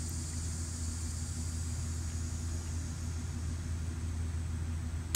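A steady low mechanical hum while the archer holds at full draw. At the very end comes the sharp snap of the compound bow being shot.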